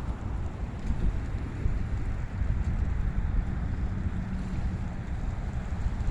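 Wind buffeting the microphone on the seashore: a steady, uneven low rumble.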